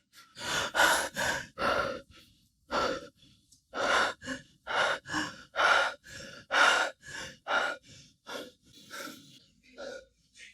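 A person breathing hard in quick, uneven gasps, close to two breaths a second.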